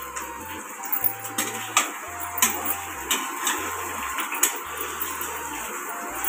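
Chopped onions sizzling in hot oil in a metal kadhai, with a metal spatula stirring them and knocking against the side of the pan several times.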